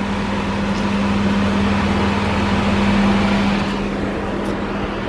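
Kitchen stove noise: a steady electric hum with an even hiss over it, from the range hood fan and the sticky, reduced pork adobo sizzling in the wok. The hiss thins about three and a half seconds in while the hum carries on.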